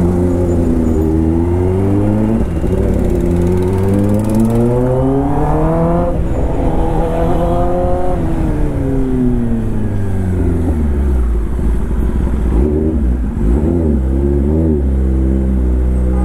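Kawasaki ZX-10R's inline-four engine under way, its revs climbing for several seconds, dipping sharply about six seconds in, climbing again, then falling away as it slows. A few short throttle blips come near the end before it settles to a steady low note.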